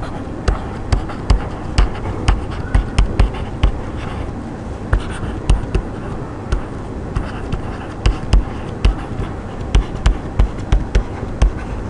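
Stylus tapping and scratching on a tablet as words are handwritten: an irregular run of sharp clicks and low knocks, several a second.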